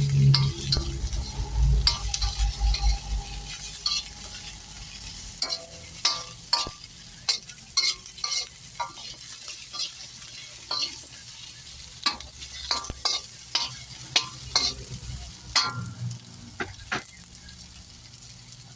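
Food frying in hot oil in a wok, a steady sizzle, with a spatula repeatedly clacking and scraping against the pan as it is stirred.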